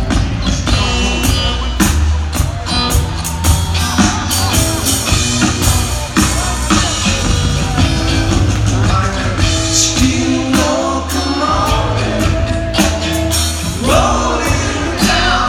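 Live band playing a rock song: guitar, upright double bass and drum kit with singing, heard from the audience seats in a concert hall.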